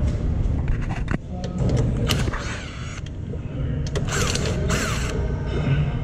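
Ratchet wrench clicking, with metal creaks and clanks, as the mount bolts are tightened. There are a couple of short squeaks that fall in pitch about four seconds in.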